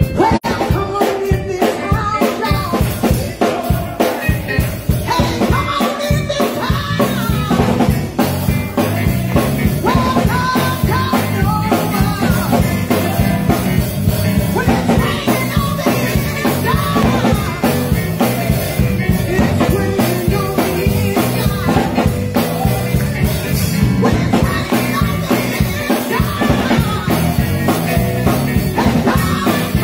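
A woman singing an up-tempo gospel song into a microphone over a live band with drums and bass keeping a steady beat.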